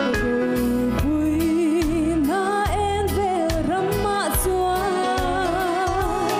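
A woman singing a gospel song into a microphone over an instrumental backing, holding long notes with vibrato and climbing to a higher phrase about two seconds in.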